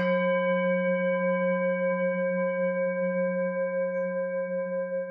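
A singing bowl is struck once and rings on with several overtones, wavering slightly as it slowly fades. The ring is cut off abruptly near the end.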